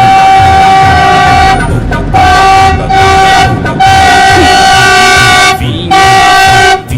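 Philippine National Railways train horn blowing four loud, long blasts at one steady pitch, with short breaks between them, over the low rumble of the train.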